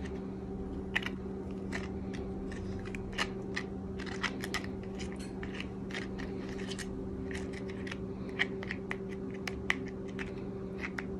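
Metal spoon clicking and scraping irregularly against a hard corn tostada shell as sour cream is spread over it, over a steady low hum.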